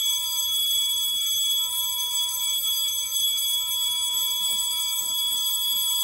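Fire alarm panel's piezo sounder giving a continuous high-pitched electronic tone, the supervisory signal after the duct smoke detector was tripped with canned test smoke. A fainter lower tone drops out twice in the first second and a half, and there is light rustling near the end.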